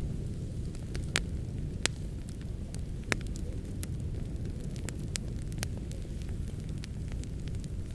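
Wood fire burning in a fireplace: a steady low rumble of flames with irregular sharp crackles and pops, a few louder pops in the first few seconds.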